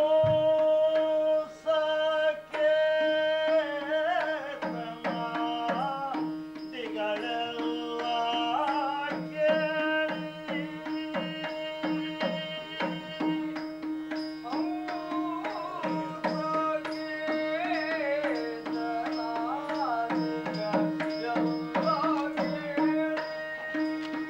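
Yakshagana music: a voice singing a wavering, ornamented melody over a steady drone, with frequent hand-drum strokes, typically from the maddale.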